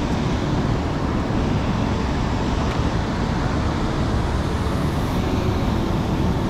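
Steady rush of water pouring through a dam spillway and churning along the fast river current below it.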